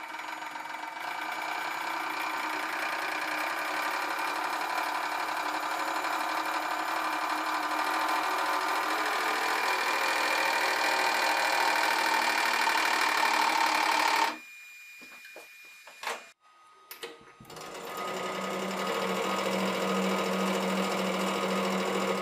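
Electric hydraulic press pump running with a steady whine that grows louder as the ram presses down under rising load. About two-thirds through it cuts off suddenly, there are a few clicks, then the pump runs again with a deeper hum as the ram lifts.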